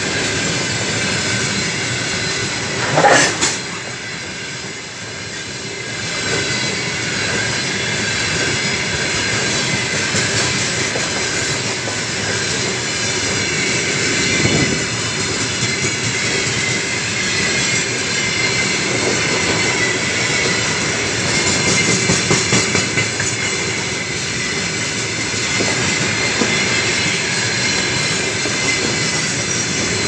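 Open-top freight gondola wagons of a long freight train rolling past at close range: a steady rumble of steel wheels on rail with thin squealing tones from the wheels. A short loud metallic noise comes about three seconds in, and a run of louder wheel clatter a little past two thirds of the way through.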